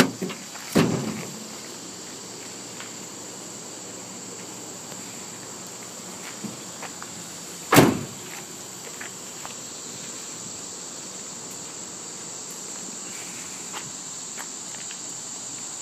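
Steady high-pitched chirring of insects throughout, with a dull thump about a second in and a single sharp knock near the middle.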